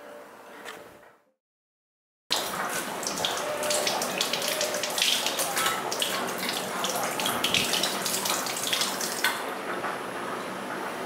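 Kitchen tap running, its stream splashing over hands rinsing a lemon and into a stainless-steel sink. The water starts abruptly about two seconds in after a moment of silence, and the splashing drops off near the end as the tap is shut.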